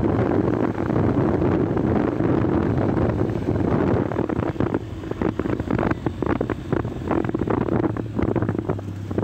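Wind buffeting the microphone of a moving motorcycle, over the steady running of the Yamaha YB125Z's 125 cc single-cylinder engine. The wind rush turns choppier and a little quieter from about four seconds in.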